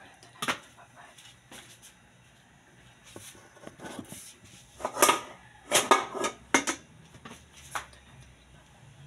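Kitchen knife and a whole papaya knocking and clattering on a plastic cutting board as the fruit is handled and peeled: scattered light knocks, with a cluster of loud sharp ones a little past halfway.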